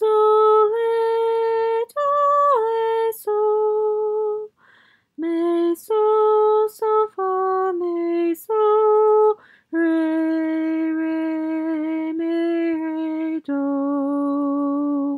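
A single female voice singing a slow sight-singing exercise unaccompanied: about a dozen held notes moving up and down by small steps with brief breaths between, the last few notes long and settling lower.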